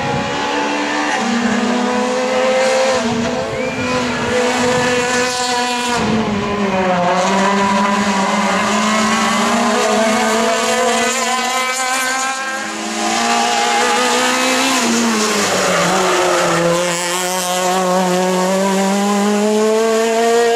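Hatchback rally car's engine revving hard on a tarmac stage, its pitch climbing and dropping again and again with throttle and gear changes.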